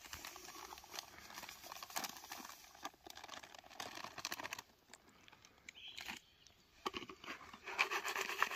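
Plastic groundbait packet crinkling and rustling as dry fishing groundbait is handled for mixing, in irregular bursts with small clicks and a quieter stretch between about five and seven seconds in.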